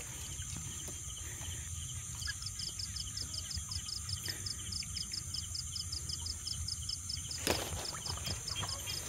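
Night insects: a steady high drone with a cricket chirping in quick, even pulses, about four or five a second, starting a couple of seconds in. A single sharp click sounds about seven and a half seconds in.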